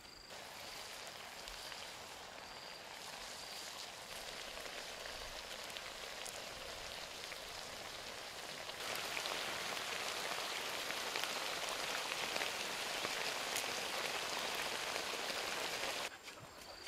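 Intestines sizzling and crackling in a pot of hot sauce. The sound is a dense, steady crackle that gets louder about nine seconds in and stops suddenly near the end.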